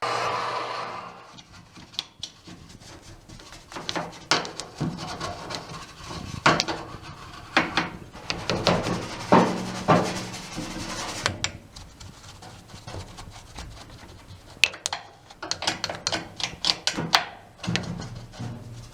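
A running machine winds down and stops about a second in. After that come irregular rubbing and scraping sounds with scattered knocks and clicks, as parts are handled and worked on by hand.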